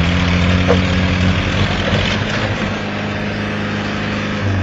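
Off-road vehicle engine running steadily under load, its pitch shifting near the end.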